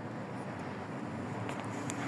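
Steady outdoor background noise, a low even rumble with no distinct source, with a couple of faint light clicks near the end.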